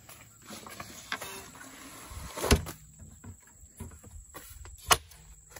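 Folding camp table with a bamboo top and aluminium legs being handled and folded: rustling and light clatter of the metal frame, a loud knock about two and a half seconds in, and a sharp click near the end as parts fold into place.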